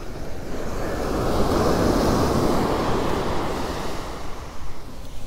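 Ocean surf breaking and washing up the beach, swelling about a second in and fading away near the end, with wind buffeting the microphone.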